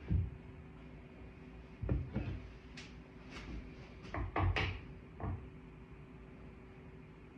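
Several separate knocks and light clatters, like wooden pieces or tools being handled and set down on a bench, over a faint steady hum.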